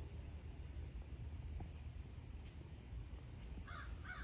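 A crow cawing twice in quick succession near the end, over a steady low rumble, with a faint short high bird whistle about a second and a half in.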